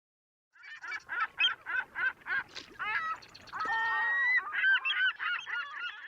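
Geese honking: quick repeated calls about four a second, a longer drawn-out call near the middle, then several birds calling over one another. The honking starts suddenly out of silence about half a second in.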